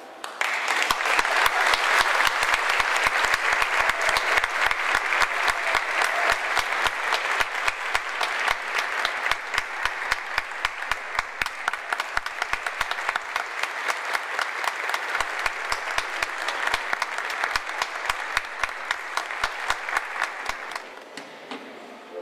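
Audience applauding, starting suddenly about half a second in and keeping up steadily until it dies away near the end.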